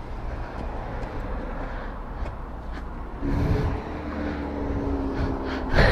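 Vehicle noise on a street: a steady low rumble, joined about three seconds in by a steady engine hum from a vehicle.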